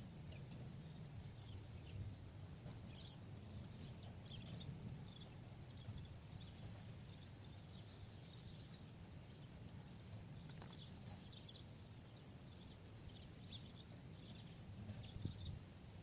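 Faint outdoor ambience: a low steady rumble with scattered faint high chirps.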